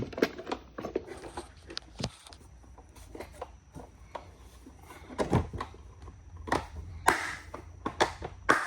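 Tools and plastic cases being handled in a toolbox: a run of small clicks and rattles, with louder knocks and scrapes about five, seven and eight and a half seconds in.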